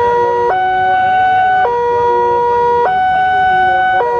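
Electronic warning alarm of a Wantech-built railway level crossing sounding: two steady tones alternate, a higher and a lower one, each held a little over a second. It is the signal that a train is approaching and the crossing is closing.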